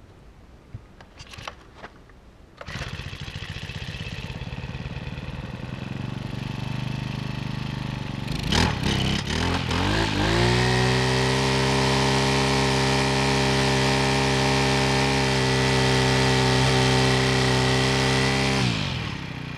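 Honda GX four-stroke string trimmer engine, freshly repaired: it catches a few seconds in and runs. It is then throttled up and holds a high, steady speed for several seconds, dropping back toward idle near the end.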